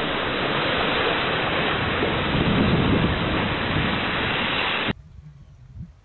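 Wind buffeting the microphone over the rush of sea water aboard a sailboat running downwind in choppy seas: a steady noise that cuts off abruptly about five seconds in.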